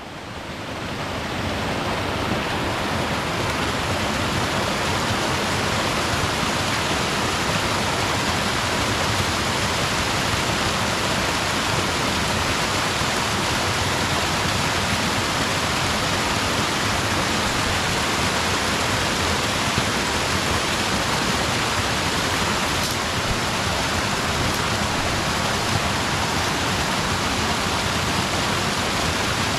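Steady rushing of flowing river water, fading in over the first two seconds and then holding even.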